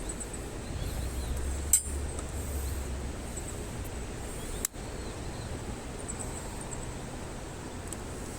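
Campfire burning with a steady low rustle, and two sharp pops from the burning wood, the louder about two seconds in and the other about halfway through.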